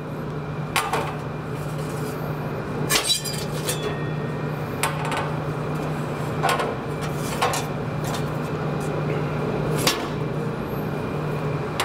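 Split firewood logs knocking and clattering against a long metal oven peel and the stone hearth floor as they are stacked onto a small wood fire at the back of a stone hearth oven: about six sharp knocks, the loudest about three seconds in, over a steady low hum.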